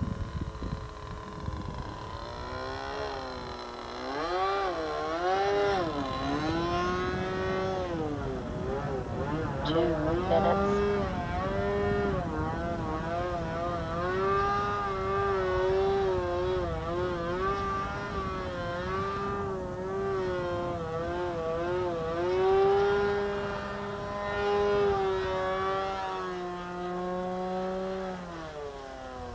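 The engine of a radio-controlled Edge 540 aerobatic model plane with a can muffler, running as the plane flies overhead. Its pitch keeps rising and falling with throttle changes and passes, holding steadier in the middle and dropping near the end.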